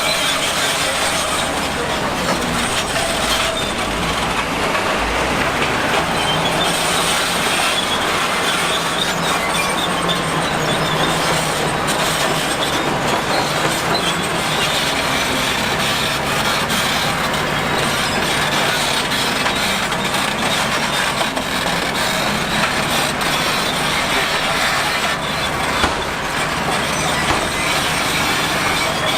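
Crawler bulldozer running steadily, its diesel engine humming under a continuous clatter and squeal of its steel tracks.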